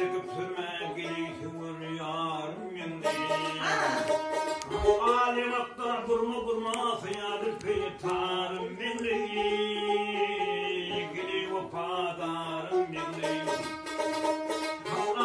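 Turkmen-style dutar, a long-necked two-string lute, strummed and plucked in a steady rhythm, accompanying a man singing in long, wavering held notes in the bagshy epic style.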